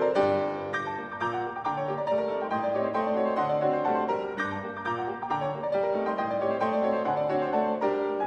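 Background instrumental music: a steady run of notes over a low, repeating bass line.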